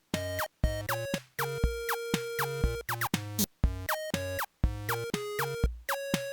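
Electronic background music: short, clean repeated notes, some sliding downward, over a steady low beat.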